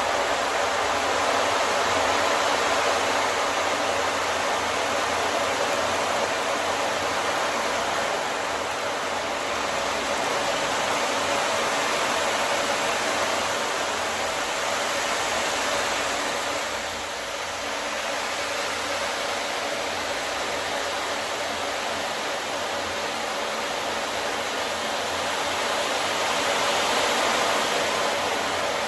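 Ocean drum tilted slowly so the beads inside roll across the drumhead, making a steady surf-like hiss that swells and fades in slow waves.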